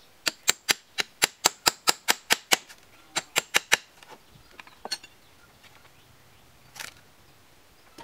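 Hammer driving nails into a timber roof rafter: a fast run of about a dozen sharp, ringing blows, a short pause, then four more, followed by a few lighter taps.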